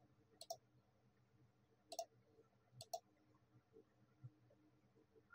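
Computer mouse button clicks, about four sharp, separate clicks, as points are placed with a 3D modelling program's knife tool.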